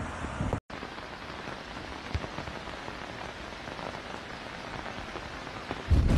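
Steady rain falling on leaves, an even hiss. Just before the end a louder, rougher rush of noise comes in.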